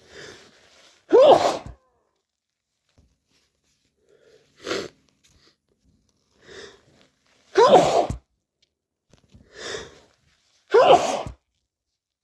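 A person sneezing three times, loudly and voiced, each sneeze coming about a second after a quick noisy in-breath. A shorter, softer sneezy burst comes about halfway between the first and second sneezes.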